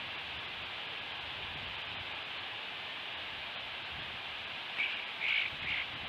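Three short, sharp calls near the end, likely from an American kestrel arriving on the perch, over a steady hiss of wind and outdoor noise.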